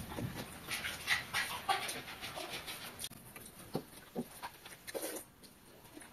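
Close-up eating sounds: wet chewing and lip-smacking in quick irregular clicks, with hands squishing rice soaked in water in steel bowls. Busier in the first half, sparser near the end.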